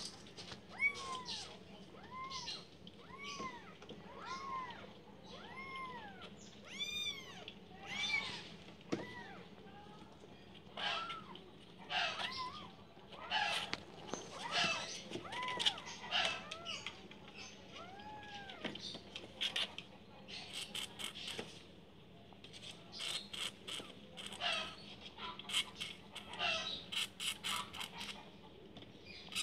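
Kitten mewing: thin, high cries that rise and fall, about one a second for the first seven seconds, then more scattered. Many short clicks and knocks crowd the second half.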